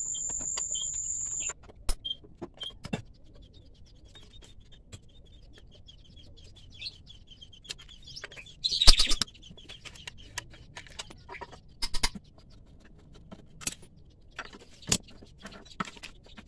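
Metal tools and parts clicking and knocking as the CVT cover of a Honda Vario scooter is unbolted and taken off. A steady high whine cuts off suddenly about a second and a half in, and there is one short loud burst of rattling about nine seconds in. A bird chirps in the background.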